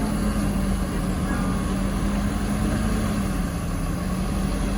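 Vehicle engine running steadily, its low hum dropping slightly in pitch about three seconds in.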